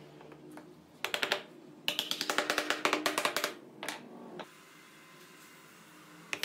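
Quick runs of light hammer taps on wood, about ten a second, starting about a second in and stopping a little past halfway, then a quiet stretch before the tapping starts again at the end. The taps are seating the wooden stump slices into the octagonal frame.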